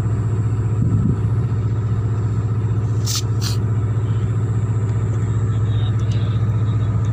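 Marine diesel engine running steadily with a low, even drone. Two short hisses come about three seconds in.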